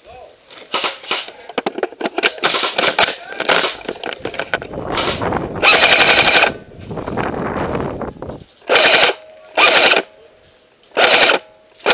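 Airsoft AK-74M rifle firing full-auto bursts right at the microphone: a long burst about halfway through, then three short bursts about a second apart near the end. Before the firing comes a run of clicks and rattling, the sling swivel rattling about an inch from the mic.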